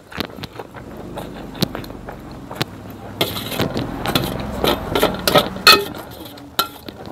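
Fried noodles being slurped and chewed up close, with a metal spoon and fork clinking and scraping on a steel plate. Sharp clicks come throughout, with a longer stretch of slurping in the middle.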